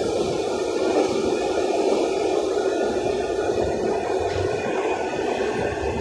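Steady running noise of a Santiago Metro AS-02 train heard from inside the carriage: an even rumble of wheels on rail and running gear with no distinct events.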